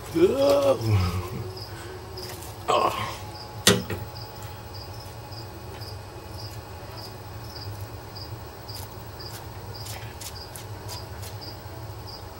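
Crickets chirping steadily, about two short high chirps a second. Near the start a short pitched sound rises and falls, then a brief rustle and a sharp click come a few seconds in.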